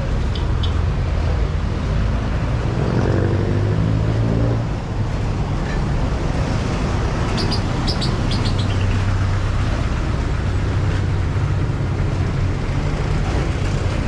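Road traffic: vehicle engines running steadily along the street, with one engine rising in pitch a few seconds in. Short high chirps come twice, near the start and about halfway through.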